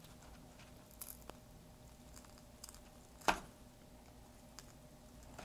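Faint clicks and scraping of a plastic guitar pick being worked into the seam between a smartphone's heat-softened back glass and its frame, with one louder click about three seconds in.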